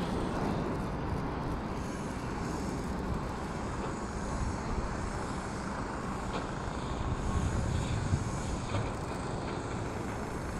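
Steady rumble of a Boeing 757's twin jet engines as the airliner comes in to land, swelling a little about seven to eight seconds in.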